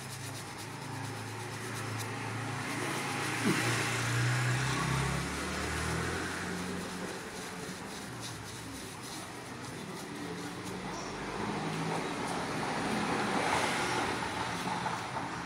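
Road traffic: vehicles passing by, swelling twice.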